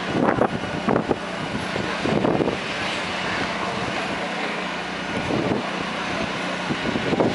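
Distant diesel tractor-trailer moving slowly, a steady engine hum, with wind noise on the microphone.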